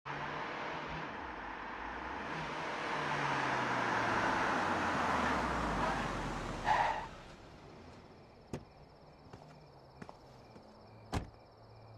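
A car drives up with a rushing road noise and low engine rumble, then brakes to a stop with a brief squeal. Crickets then chirp steadily while a car door clicks open and later shuts.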